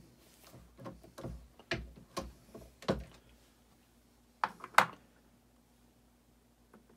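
Light knocks and clicks of hand reloading equipment and brass cartridge cases being handled during powder charging, ending in two sharp clicks about four and a half seconds in.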